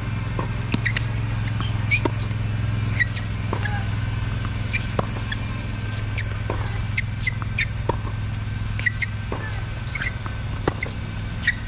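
Tennis rally on an outdoor hard court: sharp racket strikes and ball bounces with sneakers squeaking on the court surface, over a steady low hum.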